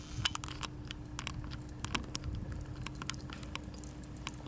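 Metal tags on a dog's collar jingling as the dog moves and sniffs about: an irregular string of small, light clinks.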